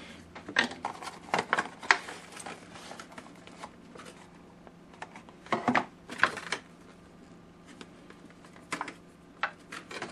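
Clear plastic packaging crinkling and crackling in the hands as it is squeezed and pulled open, in irregular clusters of rustles and sharp clicks.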